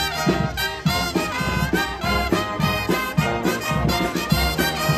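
Brass band playing live: saxophones, trumpets and trombones in full ensemble over a steady low beat.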